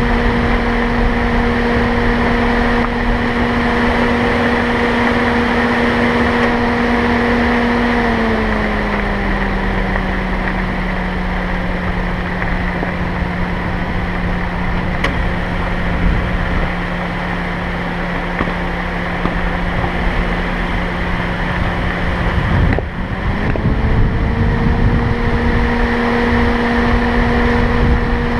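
Car driving on a road: steady engine hum over road noise. The engine note glides down about a third of the way in, holds lower, then rises back to its first pitch near the three-quarter mark as the car speeds up again.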